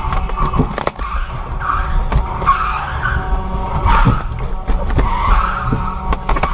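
Car tyres skidding and squealing in repeated swells over engine rumble, with scattered short knocks.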